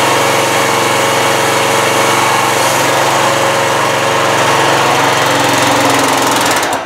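Small air-cooled petrol engine on a homemade log splitter, driving its hydraulic pump, running steadily, then slowing and cutting off near the end.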